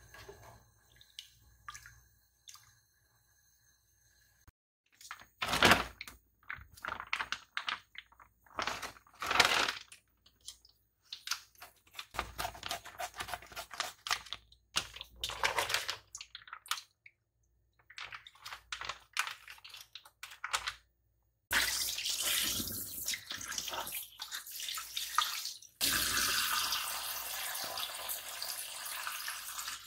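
Plastic packaging crinkling and being snipped with scissors in irregular bursts. From about two-thirds of the way in, a kitchen tap runs steadily into a steel bowl of fish fillets in the sink, with a short break shortly before the end.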